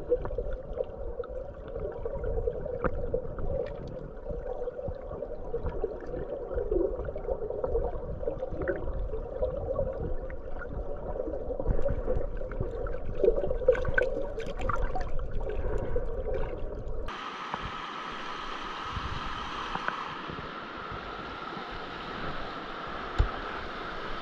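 A fast-flowing creek heard underwater through a camera's waterproof housing: a muffled, low rush with gurgles and many small crackling ticks. About seventeen seconds in it switches to the open-air sound of the rapids, a steady, brighter rushing. A single sharp tick comes near the end.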